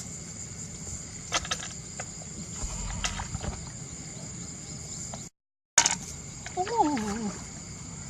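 Steady high chirring of insects, with a few sharp clicks and knocks. Just after a brief dropout past the middle, a short falling vocal sound is heard.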